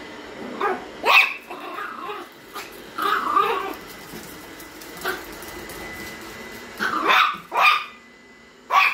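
Small dog barking at a robot vacuum in short, high, sharp barks, in bursts about one, three and five seconds in and a quick run near seven seconds, with the vacuum's steady whir underneath.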